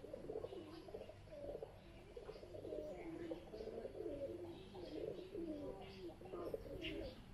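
Doves cooing on and on, several low calls overlapping, with small birds giving short high chirps now and then.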